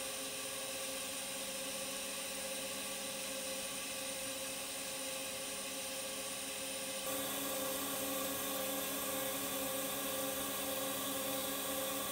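Friction stir welding machine running: a steady machine whine with several held tones over a hiss, getting a little louder about seven seconds in.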